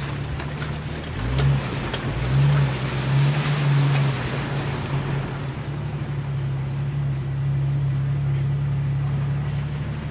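Jeep Cherokee XJ engine running at low speed on a muddy off-road track, heard from inside the cabin; the engine note swells a few times with the throttle in the first few seconds, then holds steady. A hiss with scattered clicks sits over it during the first half.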